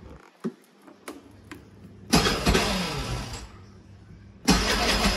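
Piaggio Zip scooter engine being started twice after a few light clicks: about two seconds in it fires and runs down within a second and a half, then near the end it starts again and keeps running. It has a jingling rattle at the moment of starting, which the owner places in the CVT block.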